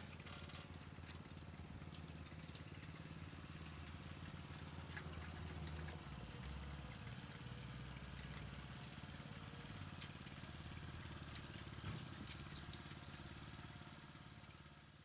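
An engine running steadily at low speed with small ticks over it, fading out near the end.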